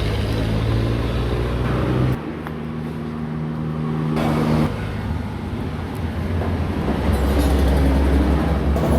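Motorcycle engine running steadily, its sound changing abruptly about two and four and a half seconds in.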